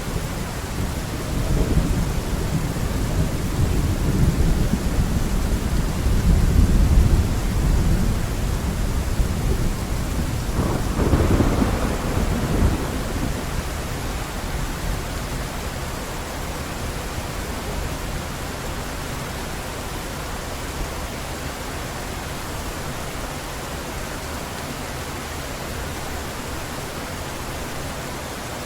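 Heavy rain falling steadily while thunder rolls, a deep rumble that swells twice in the first half and dies away, leaving only the even hiss of the downpour.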